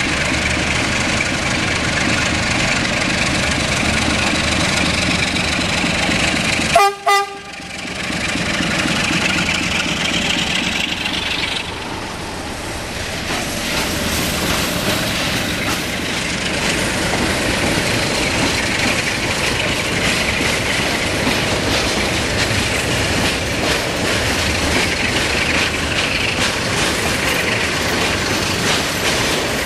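Electroputere LDE (ST43-class) diesel-electric locomotive's Sulzer diesel engine running under load as it hauls a freight train by. About seven seconds in, the locomotive gives one short horn blast. Later, the train's tank wagons roll past with a steady clickety-clack of wheels over the rail joints.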